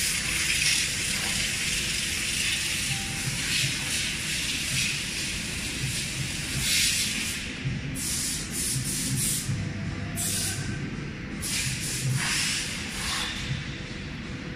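CNC router spindle with a V-bit carving characters into a board: a steady hiss from the cutter, with sharper bursts of hissing every second or two as the bit cuts, over a low hum.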